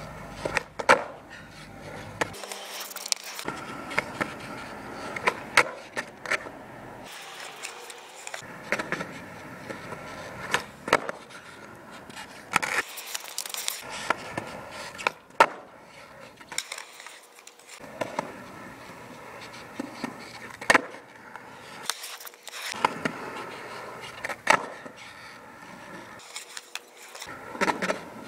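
Skateboard doing shuv-its on smooth concrete: a sharp crack of the tail pop and the clack of the board landing under the feet every couple of seconds, with the wheels rolling and scraping in between.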